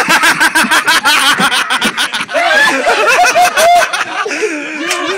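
People laughing hard in quick repeated bursts.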